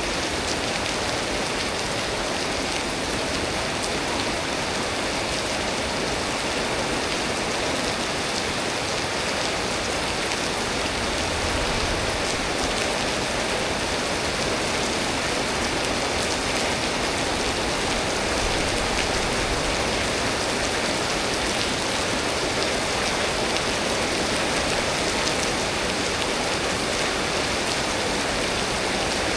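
Steady storm rain falling: an even hiss with fine, scattered ticks of drops.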